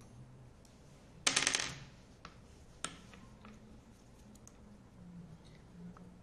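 Metal-on-metal sounds of a screwdriver and the brake-disc bolts against the steel brake rotor of an electric scooter's hub motor as the disc is unbolted. A short metallic rattle about a second in, then a sharp click, then a few light ticks.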